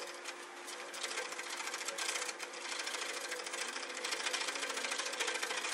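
Hand chisel cutting a wooden spindle as it spins back and forth on a foot-powered spring pole lathe: a continuous fine, rapid clatter of the tool against the turning wood.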